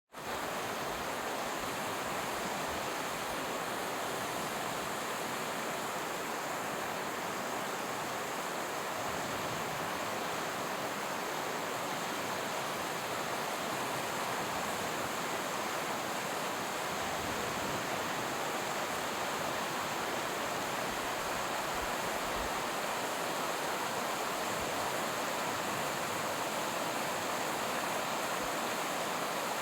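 Sea water rushing in a continuous, even hiss, with no separate wave breaks standing out.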